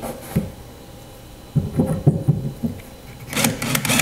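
Power drill boring a pilot hole into a particleboard bed panel: low rumbling knocks about halfway through, then a louder burst of drilling noise near the end.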